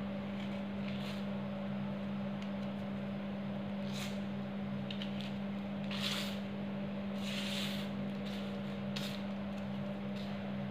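A hand pressing and raking through a heap of crushed gym chalk powder on plastic sheeting, giving four or five soft crunching rustles a second or two apart, over a steady low hum.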